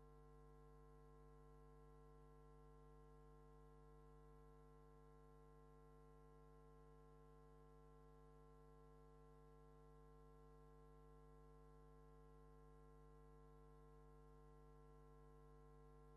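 Near silence with a faint, steady hum made of several constant tones.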